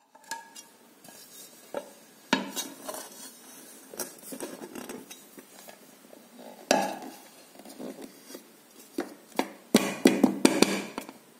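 A metal cake tin and a plate clattering and knocking together as the tin is turned out onto the plate, with a quick run of sharp taps on the upturned tin near the end to release the cake.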